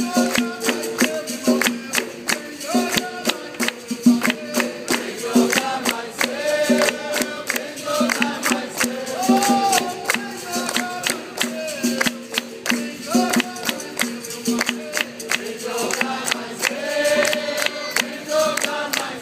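Live capoeira roda music: berimbaus and an atabaque drum keeping a steady rhythm, with hand-clapping and a group singing along.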